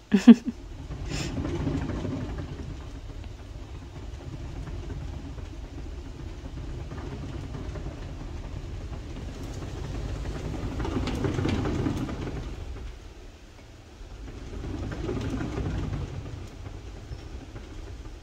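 Cat exercise wheel rolling with a low rumble as a cat walks it round, swelling and fading three times as the wheel speeds up and slows. A brief sharp sound right at the start is the loudest moment.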